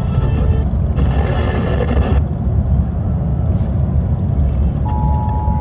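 Emergency Alert System tones from a Sage EAS encoder/decoder: the end of the buzzy SAME header data bursts, then after a pause the steady two-tone EAS attention signal comes on near the end, announcing a new alert. A steady low rumble runs under it all.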